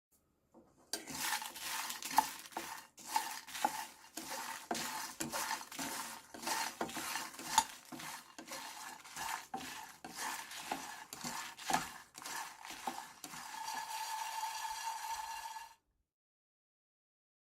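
A spoon stirring and scraping in a pot or pan, with many irregular clinks and scrapes. It stops abruptly near the end, just after a short steady ringing tone.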